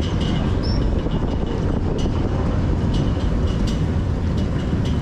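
Steady low engine and road rumble of a Hydra-Terra amphibious tour vehicle driving on a city street, heard from aboard, with a faint steady high whine above it.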